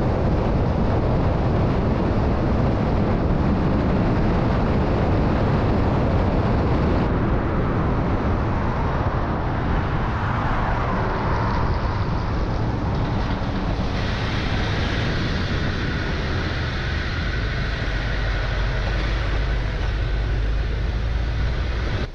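Steady tyre roar and wind rush from a 2012 Jeep Wrangler JKU on 40-inch tyres driving on pavement, with wind buffeting a camera mounted outside by the front wheel.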